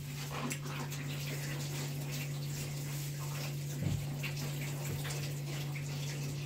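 Kitchen tap running while bell peppers are rinsed by hand under it, water splashing over hands and vegetables, with a steady low hum underneath. One brief knock about four seconds in.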